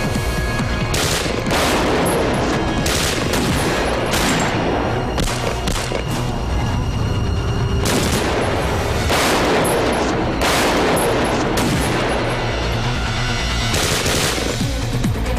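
Handgun gunfire in a boat-to-boat shootout: repeated bursts of shots all through, with a rapid string of shots near the end, over background music.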